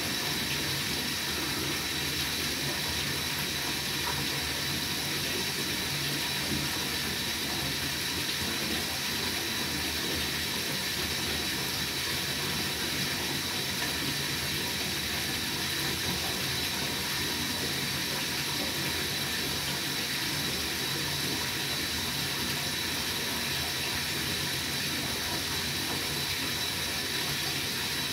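Water running steadily from a tap, an even rushing that does not change.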